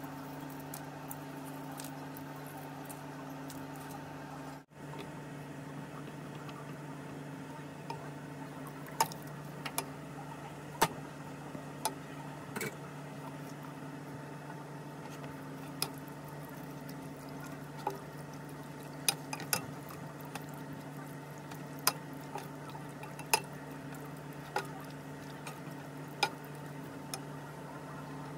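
A steady hum with a few held tones, broken by a brief gap near five seconds. After that, irregular sharp clicks and taps come from a spatula stirring chicken pieces in a nonstick pan.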